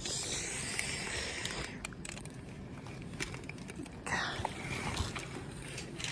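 Road and traffic noise heard from inside a moving car, a steady rush with a brief louder swell about four seconds in.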